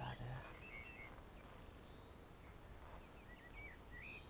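Faint birdsong: scattered short chirps and brief trills from small birds. A brief low thump comes right at the start.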